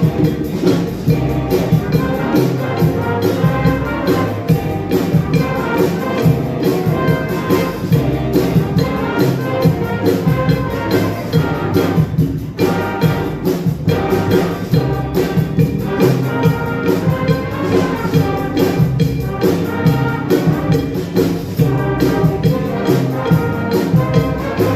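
Live music from a school ensemble, with a steady percussion beat.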